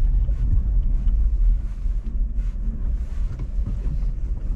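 Low, steady rumble of a car driving slowly over rough ground, with wind noise on the microphone.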